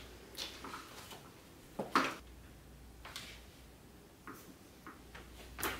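A few soft clicks and knocks, with one sharper click about two seconds in, from the Doona car seat stroller being handled and moved around.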